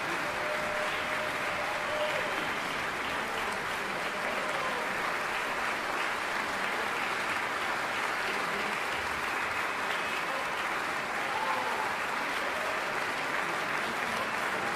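Large concert-hall audience applauding steadily after an orchestral performance.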